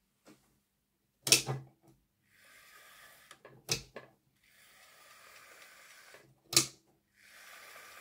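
Hornby Class 4F model locomotive's tender-mounted... running on a test track: its motor gives a faint steady whirr in three short runs, broken by three sharp clicks, the loudest about six and a half seconds in. It is a test run after the locomotive's melted wiring was replaced.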